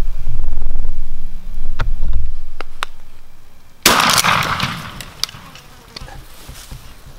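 A low rumble for the first two seconds with a few faint clicks. About four seconds in, a single shotgun shot at a tom turkey, fading over about a second.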